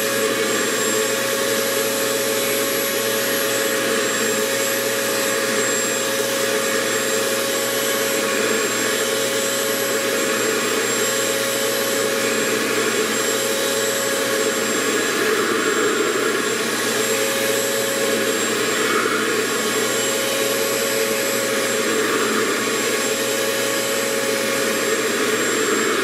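RevAir reverse-air hair dryer running steadily, its wand sucking in a section of wet hair and drying it. A loud, even rush of air with a steady whine through it.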